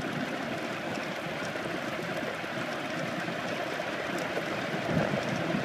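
Steady rushing noise of a racing wheelchair rolling fast downhill on wet asphalt: tyre hiss on the wet road mixed with wind on the microphone.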